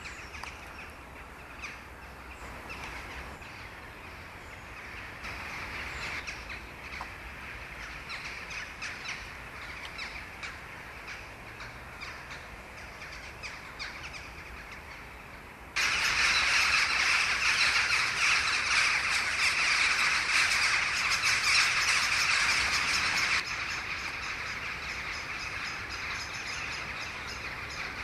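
A flock of crows and jackdaws calling overhead as they fly to roost, many short caws and chacks overlapping. A little past halfway the calling suddenly turns louder and denser, then eases back down a few seconds later.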